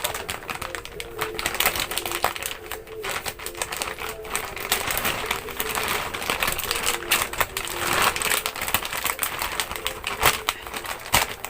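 Cardboard shipping box being torn open by hand along its 'open here' strip: irregular ripping, crackling and rustling with many sharp clicks.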